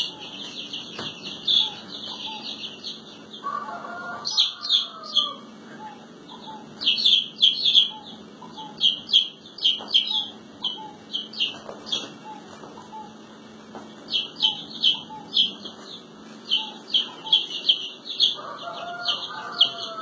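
Domestic chicks peeping: many short, high-pitched peeps in quick succession, with a lower, longer call twice, about four seconds in and near the end.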